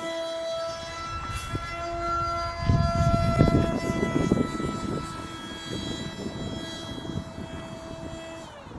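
Motor and pusher propeller of a foamboard RC jet buzzing at a steady high pitch, with a brief dip about two seconds in, then winding down in pitch and fading near the end. Wind gusts on the microphone, loudest about three to four seconds in.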